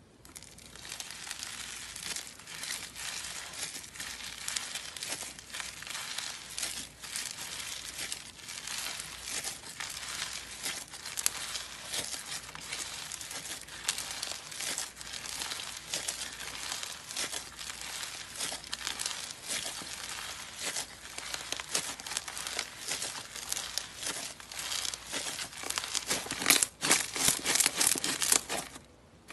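Textured slime being squeezed, stretched and folded by hand, giving a dense, continuous crackling and crinkling. The crackles get louder in the last few seconds, then stop.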